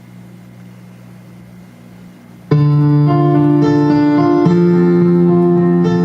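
A low steady hum, then about two and a half seconds in, piano chords start suddenly and ring on loudly, changing chord every second or so.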